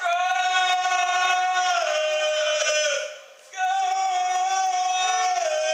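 Loud sung chant from a spectator in the crowd: a long held note that steps down in pitch at its end, sung twice with a short break about three seconds in.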